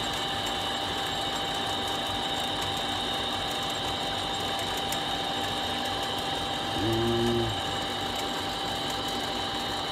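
Steady whirr of a small motor with a constant high whine. About seven seconds in there is one short voiced grunt.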